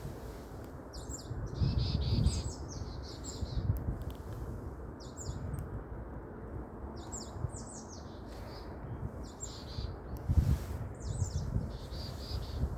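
Small birds chirping in short, quick clusters of high notes every second or two, over a steady low outdoor rumble that swells now and then.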